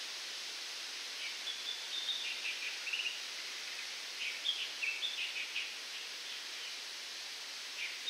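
Wind blowing through coconut palm fronds as a steady hiss, with a bird calling in two runs of quick chirps, about one to three seconds in and again about four to six seconds in.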